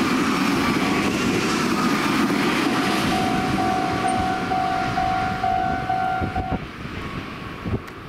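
Meitetsu limited express train passing over a level crossing, its wheel and rail noise fading as the last cars clear. The crossing's bell rings about twice a second, then stops about six and a half seconds in.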